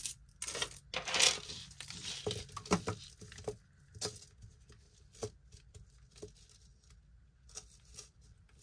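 Costume jewelry being handled and set down: scattered light clicks and clinks of metal chains, beads and pendants, with a brief rustle about a second in.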